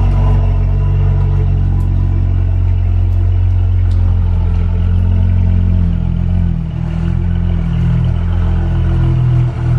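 A car engine running at idle: a loud, deep, steady rumble whose pitch shifts slightly a few times.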